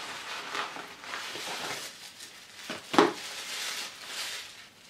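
Paper and packaging rustling as a small gift box is opened and white tissue paper is pulled off a small bottle, with one sharp click about three seconds in.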